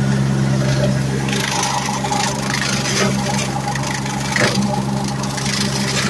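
Gator utility vehicle's engine running steadily while it is driven, with irregular rattling and clatter over it.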